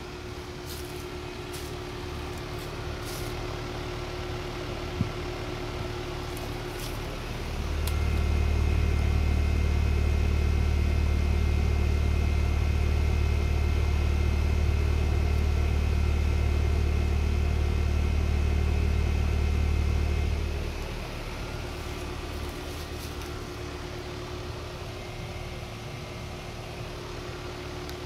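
Carrier 25HCE4 two-ton heat pump outdoor unit running, its condenser fan and compressor giving a steady hum with a few faint steady tones. From about seven seconds in to about twenty seconds, a deep low hum comes up much louder, heard close up at the cabinet, then drops back.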